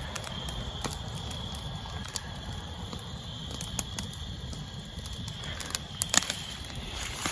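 Brush fire of burning wood and branches crackling, with irregular sharp pops, a few close together around six seconds in. Night insects keep up a steady high chirring underneath.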